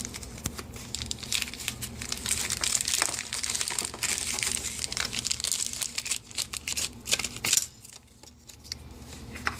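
Small product packaging being opened and handled, crinkling and crackling with many small clicks for about seven and a half seconds, then dropping to quieter handling near the end.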